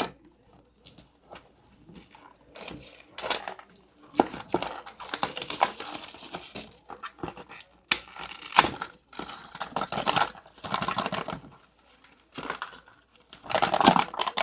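Packaging of a new speedcube being opened by hand: plastic wrap and box crinkling and tearing in several stretches, with a few sharp clicks and knocks between them.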